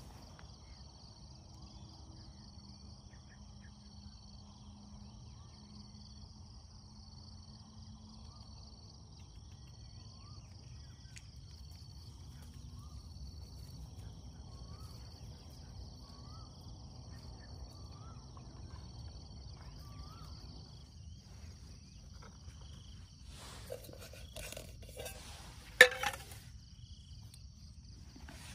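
Steady high-pitched insect chorus with a pulsing trill beneath it, and a short rising call repeating about every second and a half through the middle. Near the end come sharp clicks and metallic clatter of camping cookware and a gas canister being handled, with one loud click.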